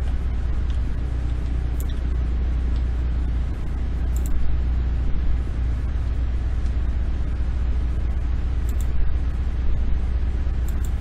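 Steady low hum with an even hiss over it, the background noise of the recording setup, with a few brief faint clicks, like a computer mouse, spread through it.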